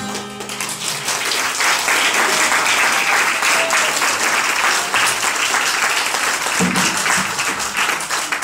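A last strummed acoustic guitar chord rings out, and about a second in an audience of children and adults breaks into steady applause.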